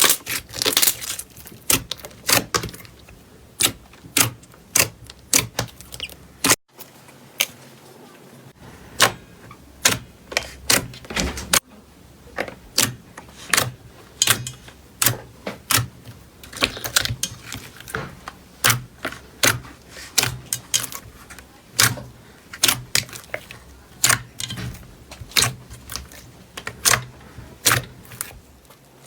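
Crunchy slime being pressed and squeezed by hand: a steady run of sharp crackles and clicks, with a brief break about six and a half seconds in.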